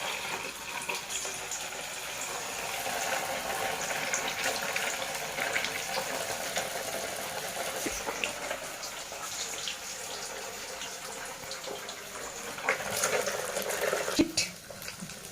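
Momos frying in hot oil in a kadai, a steady sizzling hiss with constant small crackles. A sharp knock near the end.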